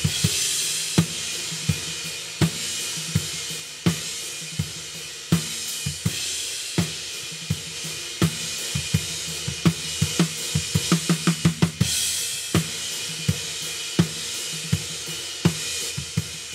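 Recorded drum kit playing a steady beat, with kick, snare and a constant wash of cymbals and hi-hat, heard through the overhead mic channel. It is first run through a dbx 160-style compressor, then heard with the compressor bypassed. A quick run of drum hits comes about ten seconds in, and a cymbal swells just after.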